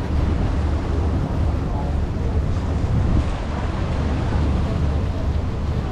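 Steady low rumble of a river passenger boat underway: its engine drone mixed with wind buffeting the microphone.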